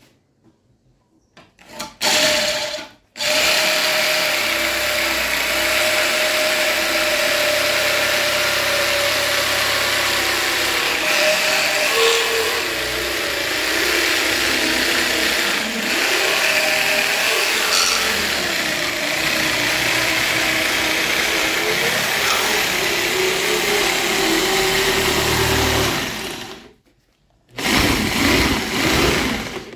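Electric drill spinning a wooden strip through a hole in a box-end wrench held in a vise, shaving it round into a dowel: motor whine over the rasp of wood being cut. A short burst about two seconds in, then a steady run for over twenty seconds, a brief stop near the end and a few short restarts.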